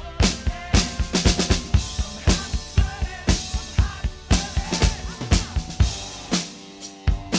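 Isolated rock drum kit playing a steady beat, with a quick run of hits about a second in and a brief lull near the end.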